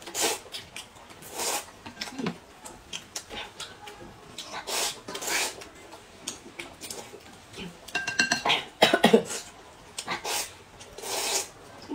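Noodles slurped from a soup bowl in repeated short hissing pulls, with chopsticks clicking against the ceramic bowl; the loudest, squeakier burst of slurping comes about eight to nine seconds in.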